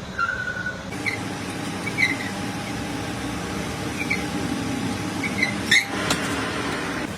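Lathe running steadily with a faint whine, with several short high squeaks scattered through and a sharp click about six seconds in.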